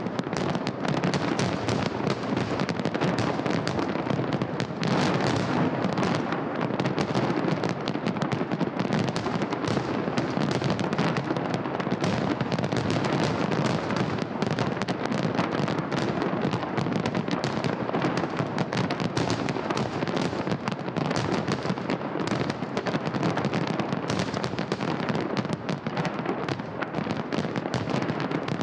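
Holiday fireworks salute: a dense, continuous crackle of many small bursts and pops in quick succession, keeping an even level throughout.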